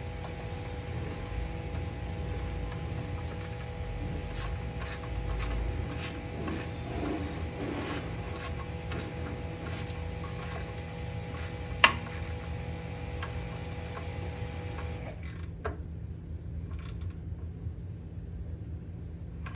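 Hand tools working on small bolts: scattered light metallic clicks and rubbing, with one sharp clack a little past the middle, over a steady hum that cuts off about three quarters of the way through.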